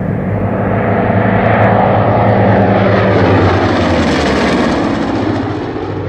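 Two P-47 Thunderbolts' Pratt & Whitney R-2800 radial engines and propellers making a low pass. The steady drone grows louder as they close in, drops in pitch as they go by about three to four seconds in, and fades as they pull away.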